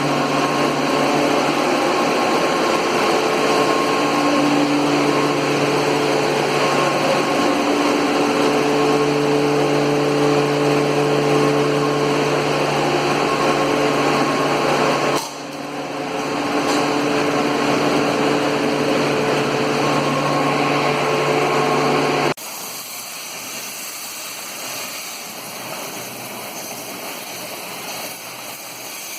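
Rotary screw air compressor running with a steady, pitched hum. The sound dips abruptly about 15 seconds in and drops sharply about 22 seconds in, staying much quieter after that.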